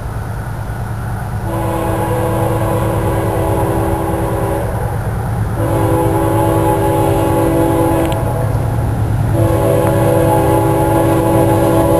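Air horn of an approaching CSX GE AC6000CW diesel locomotive sounding three long blasts, a horn rated the worst heard on that model. A steady low rumble from the locomotive runs underneath and grows louder as it nears.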